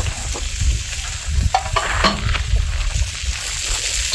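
Meat sizzling over a campfire, a steady crackling hiss with scattered sharp pops.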